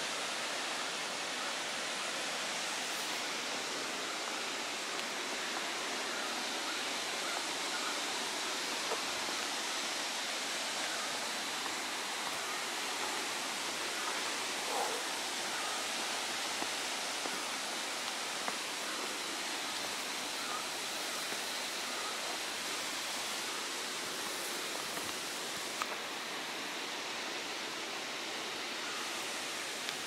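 A tall waterfall's falling water makes a steady, even rush, with a few faint ticks now and then.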